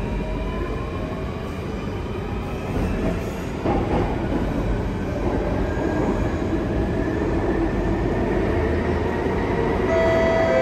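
Circle Line MRT train heard from inside the carriage while running through a tunnel: a steady rumble of wheels and running gear, with a rising whine as the train picks up speed in the first couple of seconds. Near the end a set of steady tones comes in.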